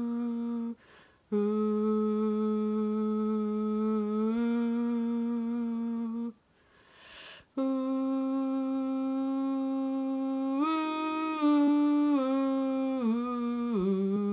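A woman humming long held notes, each a few seconds, with two short breaths in between; near the end the tune steps up and then slides down through several notes.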